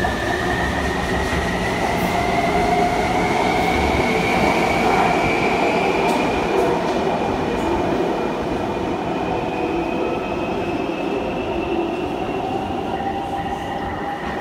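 Taipei Metro C321 train pulling out of the station and accelerating into the tunnel. The motors' whine rises steadily in pitch over the rumble of the wheels, then grows fainter in the second half as the train draws away.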